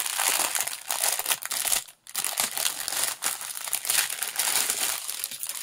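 Clear plastic wrapping and zip-lock bags of diamond-painting drills crinkling as they are handled, with a brief pause about two seconds in.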